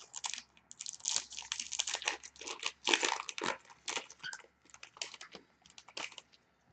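Plastic wrapping on a sealed box of hockey cards being torn open and crumpled by hand, an irregular crackling and crinkling that stops about six seconds in.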